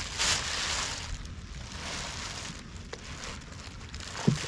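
Rustling of a plastic rain poncho over a steady outdoor hiss, loudest briefly near the start, with a couple of dull knocks near the end.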